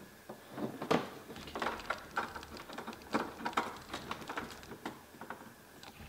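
Cables and connectors handled at the back of a TV: irregular rustling with many light clicks and knocks.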